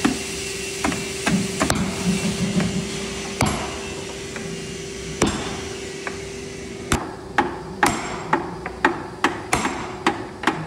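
Cooper's hammer striking the metal hoops of a small oak barrel, driving them down to hold the staves together. A few scattered blows come first, then from about seven seconds in a steady run of about two blows a second.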